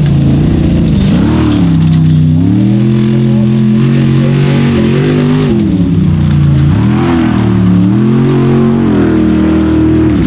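Formula Offroad buggy's V8 engine revving hard as the car slides through sand, its pitch rising and falling several times with the throttle, dropping sharply about two seconds in and again near seven seconds.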